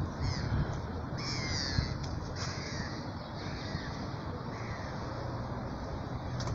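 Corvids calling: about four short, harsh calls spread over roughly five seconds, above a steady low rumble.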